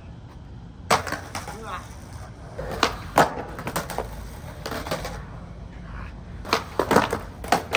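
Skateboard on rough asphalt and concrete: wheels rolling, then several sharp clacks and slaps as the board is popped and lands on a concrete ramp without the rider. The impacts come singly about one, three and five seconds in, with a quick cluster near the end.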